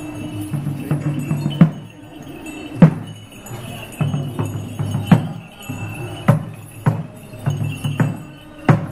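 Metal bells clanging in loud, uneven strikes about a second apart, with jingling between them, over a steady low din.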